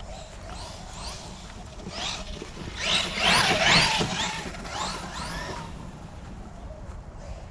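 Brushless electric motor of a Maverick Quantum+ Flux RC truck running on 3S, whining up and down in pitch with repeated throttle bursts, loudest about three to four seconds in.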